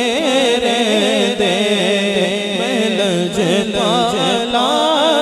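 Male naat khwan singing a devotional naat into a microphone through a PA system. The melody is richly ornamented and wavers, over a steady held lower drone.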